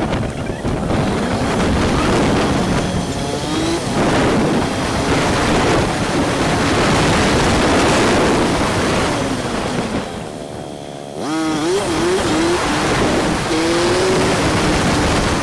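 Honda CG125's single-cylinder four-stroke engine running under way, with wind rush over the handlebar-mounted microphone. About ten seconds in the engine note drops back, then climbs again in a quick series of short rising sweeps, like shifts up through the gears.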